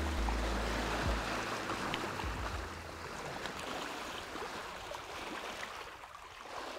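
Steady hiss of water moving along a sailboat's hull under sail in light wind, after the last low notes of background music die away in the first couple of seconds.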